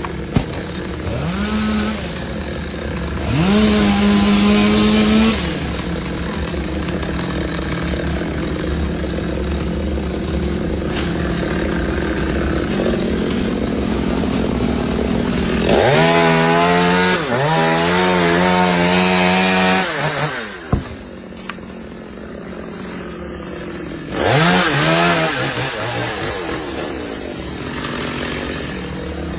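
Chainsaw engine running and revved hard five times: twice in the first few seconds, twice back to back in the middle, and once near the end. Each time the pitch climbs sharply and then drops back to a lower running note.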